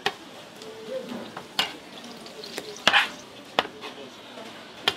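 Kitchen utensils working fish cake: five or so sharp knocks and clatters against pans or trays, with a louder scraping clatter about three seconds in, over a faint steady hiss.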